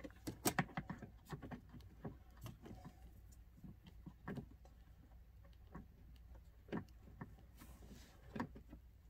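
Light plastic clicks and knocks from hands working a blend-door actuator and its gear under the dashboard: a quick cluster of sharp clicks about half a second in, then single clicks every second or two.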